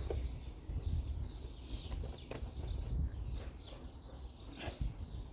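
Birds chirping and singing in the background, with a few light clicks and knocks from parts being handled.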